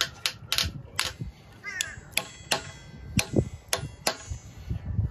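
Metal-on-metal tapping: a pin punch struck about a dozen times with the jaws of locking pliers (vise grips) used as a hammer, working on the aluminium end fitting of a sailboat's whisker pole. The taps come at an uneven pace of roughly two a second.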